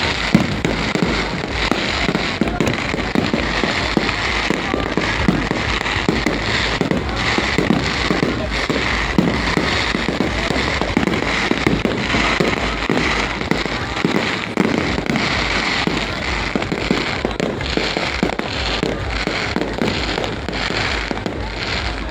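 Aerial fireworks going off in a dense, continuous barrage: rapid overlapping bangs and crackling over a steady low rumble.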